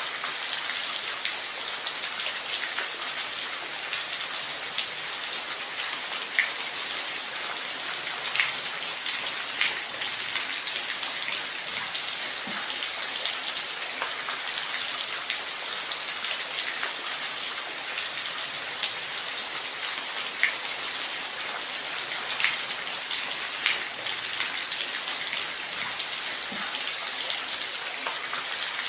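Steady rain falling, a constant hiss with many individual drops ticking sharply and irregularly on a surface.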